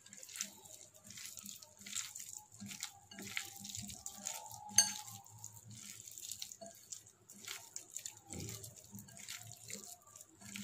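A hand squishing and turning wet, spice-coated cauliflower florets in a glass bowl: irregular wet squelches and small clicks, with one sharper click about five seconds in.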